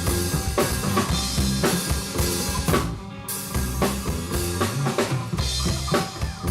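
A live rock band playing loud: the drum kit drives a steady beat of kick and snare under low bass notes. The low end drops out briefly about three seconds in, then the band comes back in.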